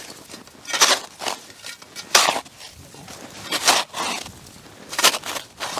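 Snow being crunched or scraped in four slow, even strokes about a second and a half apart, as snow is cleared from lake ice or walked through.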